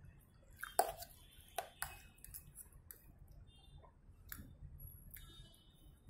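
Metal fork and knife clinking and scraping on a plate as baked eggplant is cut up, a few sharp clinks with a short ring, the loudest about a second in. Soft, wet chewing between.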